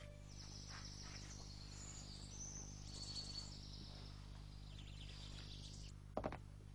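Faint birds chirping: scattered short, high chirps over a quiet background, with a couple of short clicks near the end.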